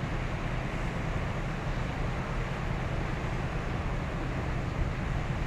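Container ship's main diesel engine droning low and steady as the ship passes, under a steady hiss of wind and water.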